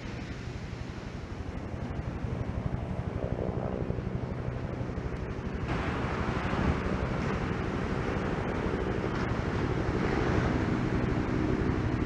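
Wind buffeting the microphone over the hiss of surf breaking on a beach. The surf hiss gets abruptly louder about halfway through.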